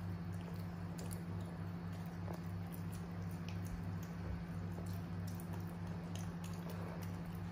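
Macaques' fingers pressing and picking at soft mashed food on woven bamboo trays: small squelches and light scattered ticks, over a steady low hum.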